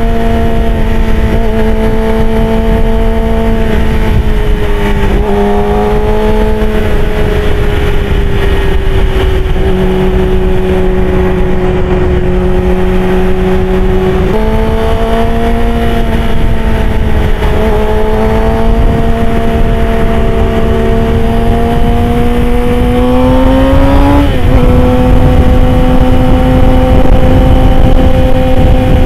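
Yamaha R6's inline-four engine running at highway speed with a steady rush of wind. The revs hold steady for long stretches, shifting up and down a few times; near the end they climb in a rising whine and drop suddenly at an upshift, then settle.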